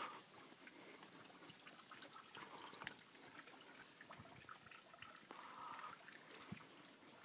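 Near silence, with faint scattered small ticks and clicks.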